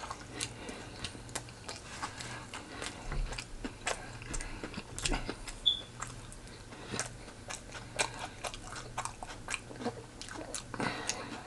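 Close-miked chewing and biting of food: irregular small clicks and mouth noises, over a faint steady low hum.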